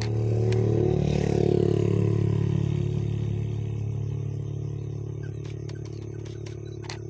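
A motor vehicle passing by: its engine and tyre noise swell to a peak about a second and a half in, then fade away slowly.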